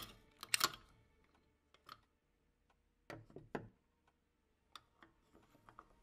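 Metal clicks and knocks of an old padlock being worked open in the hasp of a wooden chest: a few sharp clicks, the loudest in the first second, two heavier knocks a little after three seconds in, and small clicks near the end as the lid is lifted.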